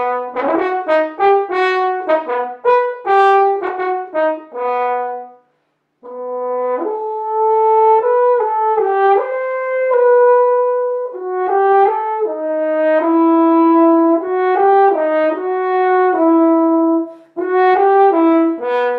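Solo French horn (a silver double horn) playing a melody: a run of short, detached notes, a brief pause about five seconds in, then longer held notes, and another quick run of short notes near the end.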